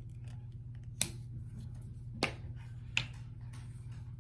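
Three sharp plastic clicks, about a second apart, from a glue stick being uncapped and handled, over a steady low hum.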